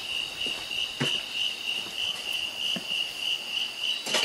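Night insects singing in a steady high-pitched pulsing chorus, about three pulses a second, with a soft knock about a second in and another near the end.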